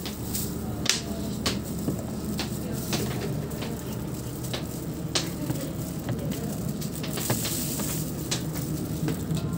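Kitchen knives chopping vegetables on plastic cutting boards: irregular sharp clicks, about one a second, over a steady low background hum.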